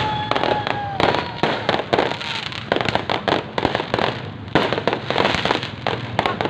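Many firecrackers and fireworks going off in dense, irregular cracks and bangs, a few a second. A whistling tone that falls slightly sounds over them in the first second or two.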